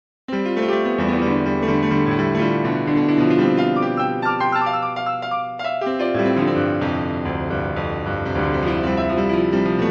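Piano music starts abruptly from dead silence a moment in, playing held chords over a sustained bass.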